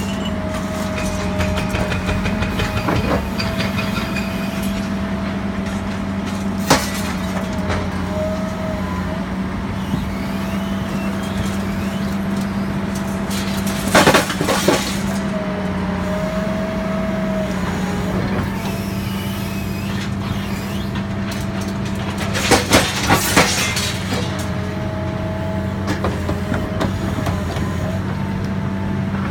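Excavator working a hydraulic scrap shear: a steady engine hum under a hydraulic whine that wavers in pitch, broken by a few sharp metallic bangs about 7 and 14 seconds in and a quick cluster of them around 23 seconds.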